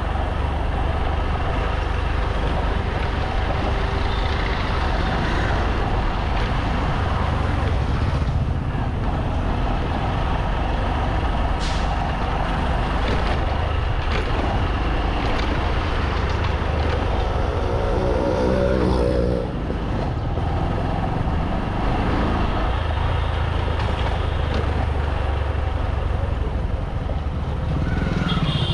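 Motorcycle engine running steadily while riding along a street, with a constant low rumble and traffic around it.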